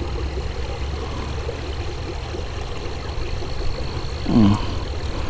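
Steady low rumble with a thin, constant high whine over it. About four seconds in there is one short low sound that falls in pitch.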